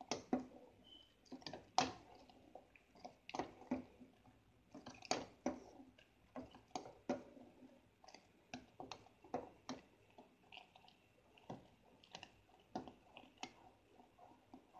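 A spoon stirring hot chocolate in an aluminum pot: irregular clicks and scrapes of the spoon against the pot's side, about two a second, over the soft swish of the liquid.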